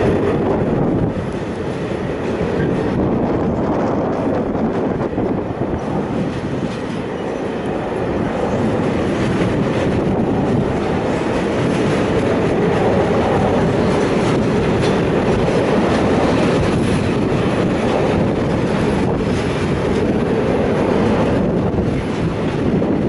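Freight train of covered goods wagons rolling past, with a steady rumble of wheels on the rails throughout.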